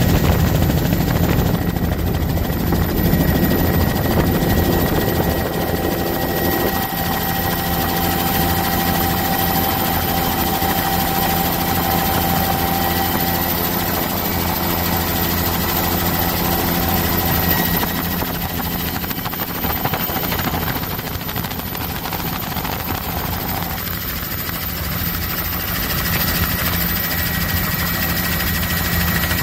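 Helicopter in flight, heard from on board: the rotor and engine run with a steady hum and a constant rush of noise.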